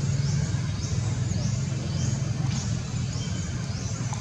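Steady low hum, like an engine or distant traffic. Over it, a short high rising chirp repeats about twice a second.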